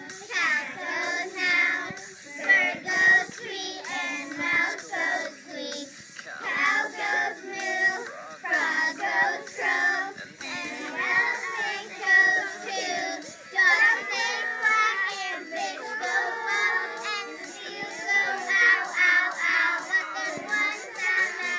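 Children singing together over a musical backing track.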